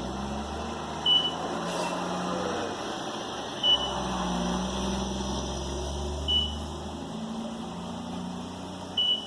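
A short high-pitched electronic beep repeating about every two and a half seconds, over a low steady rumble like a vehicle engine that swells and fades.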